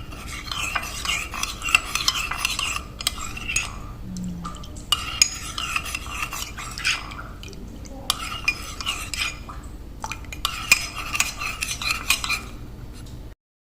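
A spoon stirring honey into a herbal turmeric drink, clinking again and again against the side of its container with short ringing tones, broken by a few brief pauses.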